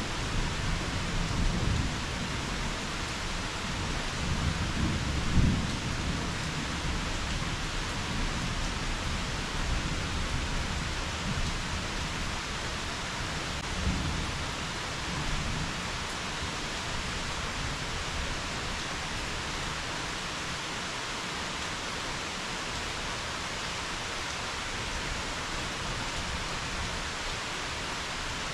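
Steady rain with thunder rumbling low underneath. The rumble swells loudest about five seconds in, rises again briefly near fourteen seconds, then dies away, leaving only the rain.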